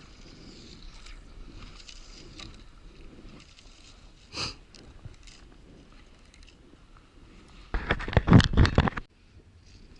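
Faint steady hiss of wind and water, broken by a short rustle about four seconds in and then a loud burst of rubbing and crackling noise on the body-worn camera's microphone, lasting about a second near the end.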